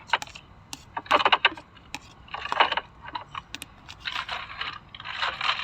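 Packaging being handled: short bouts of rustling and crinkling with sharp clicks, about a second in, around two and a half seconds in, and again from about four seconds on.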